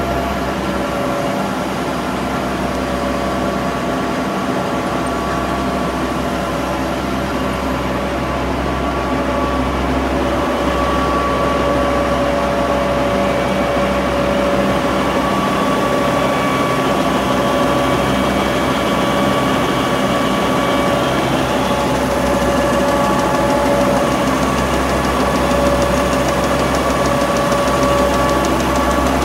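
Sanden 851 web offset press running: a steady mechanical drone with a low hum and a constant whine, as the paper web feeds through the rollers.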